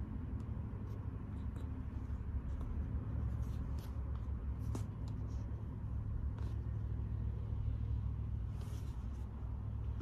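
Car engine idling steadily, a low hum heard inside the cabin, with faint clicks and rustles of a cardboard box being handled.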